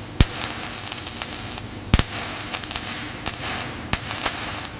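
A steady hiss with irregular sharp crackles and pops, the two loudest snaps coming just after the start and about two seconds in.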